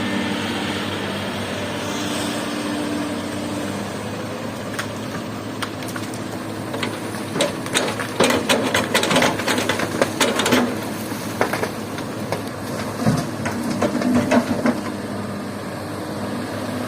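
Excavator's diesel engine running steadily, with a burst of sharp clattering knocks midway and a few more near the end as rock drops into a steel dump-truck bed.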